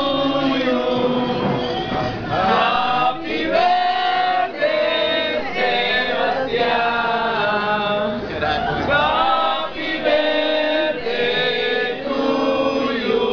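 Several people singing a birthday song together, led by men's voices with women and children joining in.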